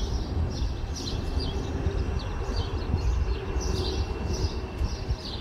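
Birds chirping, many short chirps repeating throughout, over a steady low rumble.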